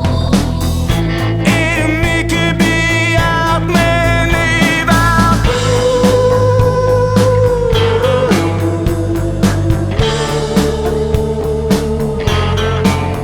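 Rock music track with a steady drum beat and sustained, bending melodic lines.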